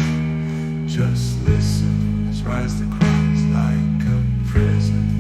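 Instrumental music: guitar-led backing with sustained low chords, the chord changing with a sharp attack about every second and a half.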